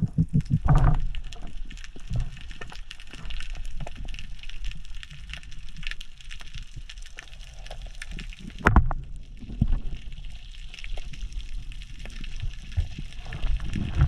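Underwater sound through a GoPro's waterproof housing as a spearfisher swims along a rocky seabed: muffled water noise with scattered clicks and crackles. A quick run of low pulses comes in the first second, and a louder knock comes near the middle.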